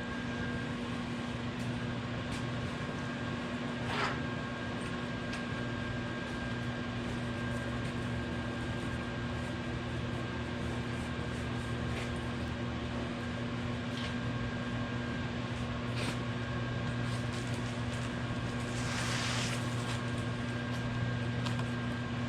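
Microwave oven running, a steady electrical hum with its fan whirring, while it heats a ball bearing wrapped in a water-soaked rag. A few faint ticks sound over it, and a short hiss comes near the end.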